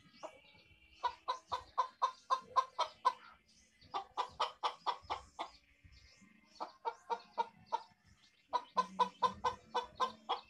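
Chicken clucking in four runs of quick, evenly spaced notes, each run lasting one to two seconds with short pauses between.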